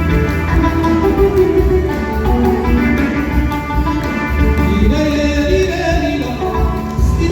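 Live Hassani Sahrawi folk music from an amplified band: a melody line over a heavy, steady beat.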